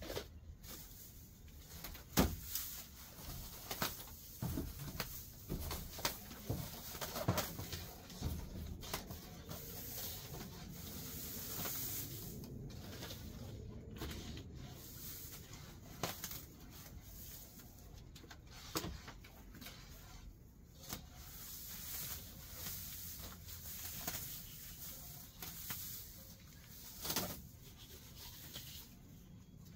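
Overgrown grass and weeds rustling and crackling as they are pulled up and gathered by hand, with many short snaps and knocks scattered throughout.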